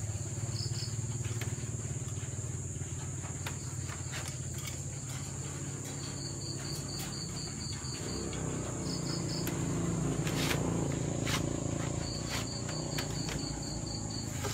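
Night insects: a steady high-pitched drone, with a cricket trilling in two runs of rapid, even pulses, over a low steady hum and a few handling clicks.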